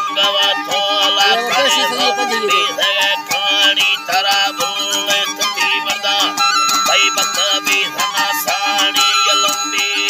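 Folk music played live: a wooden flute sounds wavering, ornamented held notes over a plucked long-necked lute strummed in a fast, even rhythm, with a man singing along.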